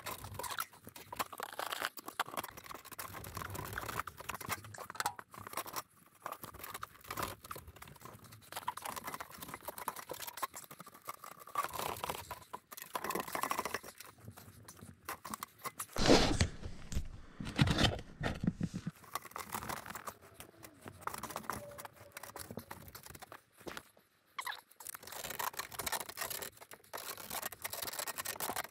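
Semi-rigid aluminium ventilation duct being handled and worked into place, with irregular crinkling, crackling and scraping. A louder stretch of bumping and rustling comes about 16 seconds in.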